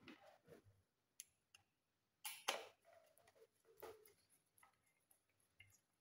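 Faint, scattered clicks and light taps of wires being handled and fitted at a white plastic batten lampholder's terminals, with the clearest taps a little over two seconds in.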